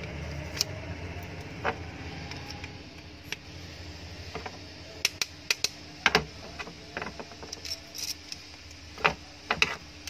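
Scattered light metallic clicks and taps from the parts of a mixer grinder motor being handled as its end bracket is seated over the armature shaft. A cluster of sharper clicks comes about halfway through, and two more come near the end.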